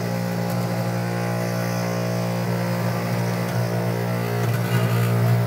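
Electric cotton candy machine running with a steady hum from its spinning head motor.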